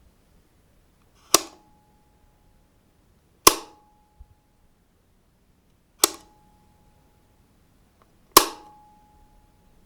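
A wall light switch clicked four times, on and off in turn, each a sharp snap with a brief ring.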